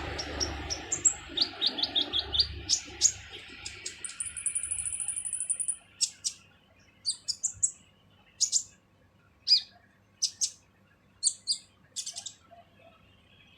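Kolibri ninja sunbird singing harsh, rapid high chirps and short calls, with a long high trill about four seconds in, then sparser sharp chirps.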